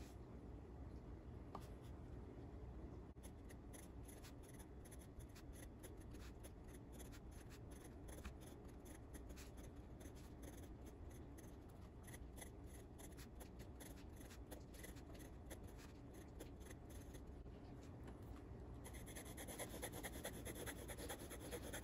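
Faint scratching of a steel dip-pen nib writing on lined paper, in many short strokes of handwriting. Near the end it turns to a denser, slightly louder scratching as the nib draws a continuous zigzag line.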